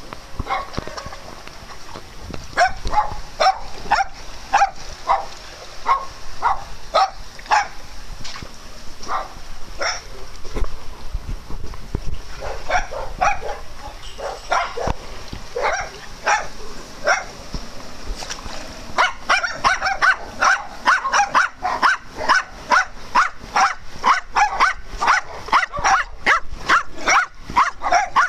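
Dog barking repeatedly, at first in scattered barks. About two-thirds of the way through it becomes a rapid, steady run of about two barks a second from a Jack Russell terrier.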